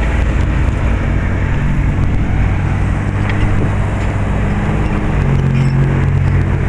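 NJ Transit GP40PH-2B diesel locomotive running as it passes close by, a loud, steady low engine rumble. Its engine note shifts about five seconds in.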